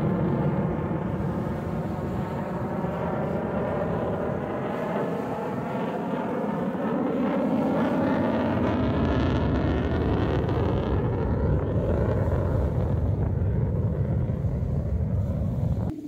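Jet aircraft flying past, a loud, continuous roar with a sweeping tone that slowly rises in pitch in the middle. It cuts off abruptly near the end.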